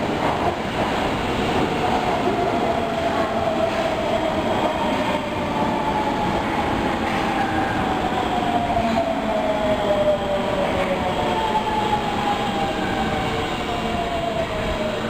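Osaka Metro Tanimachi Line subway train running, with rolling noise and a motor whine that falls slowly in pitch as the train slows down.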